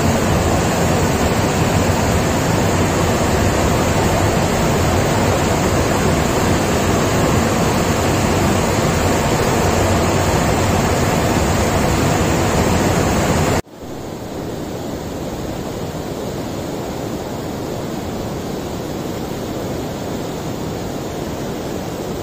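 Water rushing through an opened dam sluice gate in a loud, steady torrent. About 14 seconds in it cuts suddenly to a quieter, steady rush of the churning outflow below the gate.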